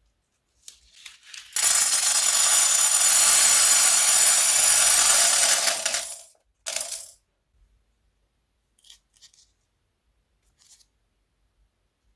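Many small hard plastic beads pouring in a steady rattling stream for about four seconds, then a second short pour, followed by a few faint clicks.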